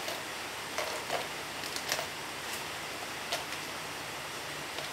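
Plastic toy pieces being handled, making a few light, separate clicks and taps over a steady background hiss.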